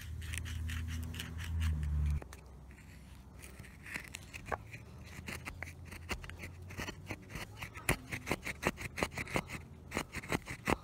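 Knife blade shaving and scraping wood in short strokes while carving a spoon, the strokes coming quicker and louder toward the end. A low steady rumble for the first two seconds cuts off suddenly.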